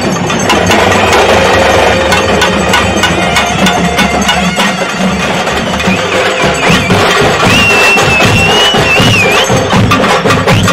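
Traditional procession drumming with a dense, fast beat. About three quarters of the way in, a high, wavering melodic note joins the drums.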